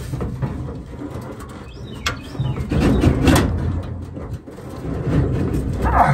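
Sheet-metal knocks, scrapes and rattles as a replacement coil heating element is worked into a Maytag dryer's heater housing, with sharper clunks about two and three seconds in.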